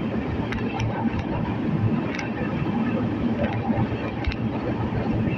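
Passenger train running on the line: a steady rumble of wheels on the rails, with a few scattered sharp clicks.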